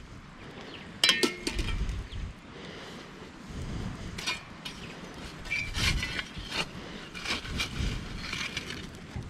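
A shovel scraping up hot coals and knocking against the lid of a camp oven: a run of irregular knocks and metallic clinks, the sharpest with a short ring about a second in.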